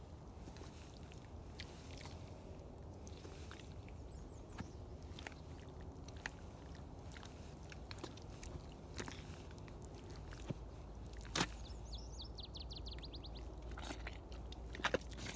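Baffin rubber boots squelching in soft, wet mud, with scattered small wet pops and crackles as the boots sink and pull free, and a sharper click about eleven seconds in. A quick run of about a dozen high ticks follows shortly after, over a steady low rumble.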